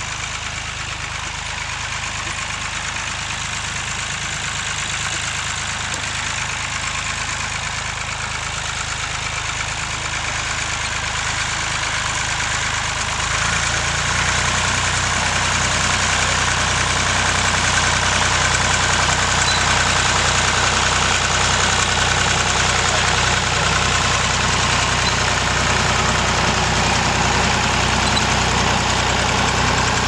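Massey Ferguson tractor engine running steadily while pulling a seed drill over tilled ground. It grows louder as it comes closer, with a step up in level about fourteen seconds in.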